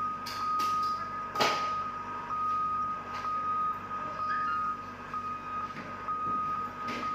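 A steady, high-pitched warning alarm tone sounding almost continuously with brief dips, over the low hum of heavy machinery. Sharp knocks come through it, the loudest about one and a half seconds in.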